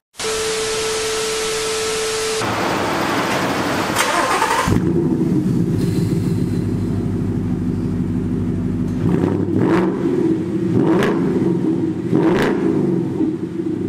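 A TV-static sound effect, hiss with a steady beep, then a 2016 Mustang GT's 5.0 V8 idling through its muffler-delete exhaust with the stock resonator still fitted. It is revved in three short blips near the end.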